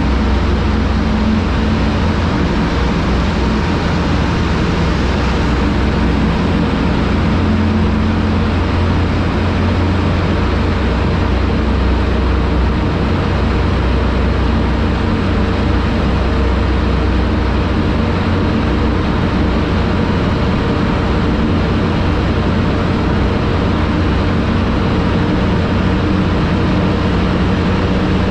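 TVS Apache 200 motorcycle's single-cylinder engine running at a steady cruise, under a constant rushing wind and road noise.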